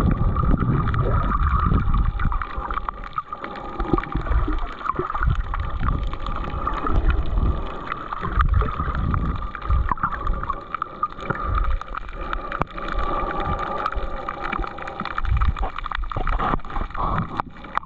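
Water moving around a GoPro 11 camera held underwater: muffled, irregular low rumbles and swells of water against the housing, over a steady faint hum.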